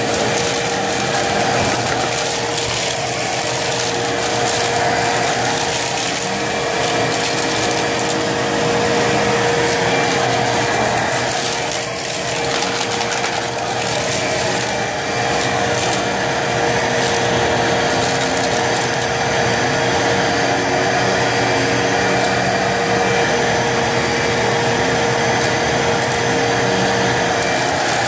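Hoover vacuum cleaner running steadily over dirt-covered carpet: a constant motor hum with a steady whine, sucking up loose dirt and debris.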